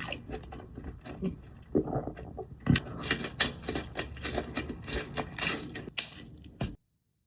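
Close-up eating sounds: chewing and crunching with a rapid run of clicks and crackles, busier in the second half, cutting off abruptly near the end.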